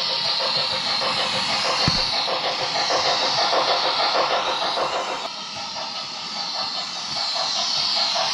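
OO gauge model goods train rolling past close by: small wagon wheels clicking in a regular rhythm over the track, over a steady hiss, with a single thump about two seconds in.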